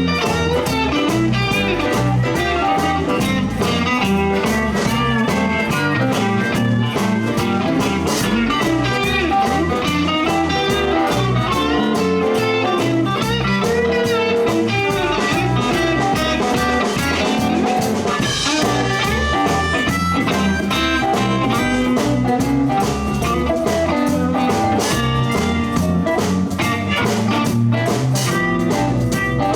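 Live blues band playing an instrumental passage, with electric guitar to the fore over drums and bass.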